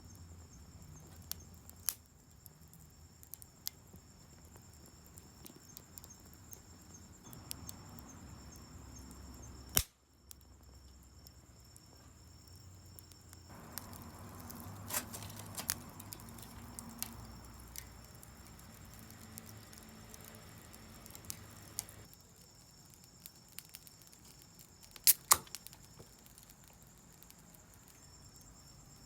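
Wood campfire crackling, with scattered sharp pops; the loudest is a quick pair of pops near the end.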